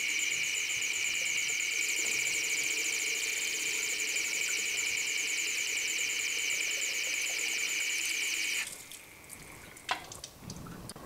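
Water running steadily from a laboratory sink tap into a bottle being filled, cutting off about eight and a half seconds in, followed a second later by a single light knock.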